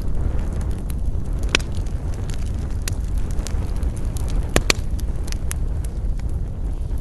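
Wood campfire burning: scattered sharp crackles and pops of the burning wood, the loudest a single pop about one and a half seconds in and a close pair about two-thirds of the way through, over a steady low rumble.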